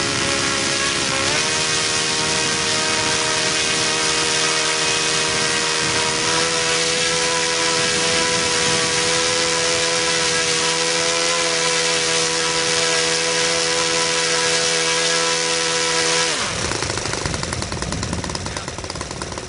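Saito FA-82a four-stroke glow engine running steadily at high throttle, stepping up slightly in pitch about a second in. Near the end the throttle comes back and the engine's pitch falls quickly as it slows toward idle.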